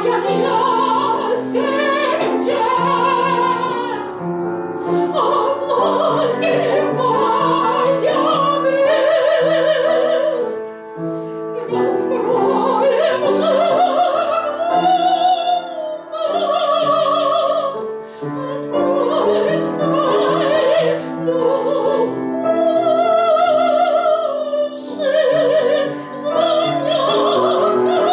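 A female voice singing a slow Russian spiritual song in a classical, operatic style, with wide vibrato on long held notes, over piano accompaniment. The phrases are separated by short pauses for breath.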